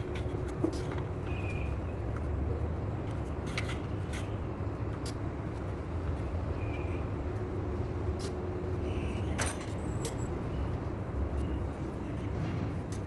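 Scattered light clicks and clinks, as of tools and parts being handled during a brake pad change, over a steady low rumble.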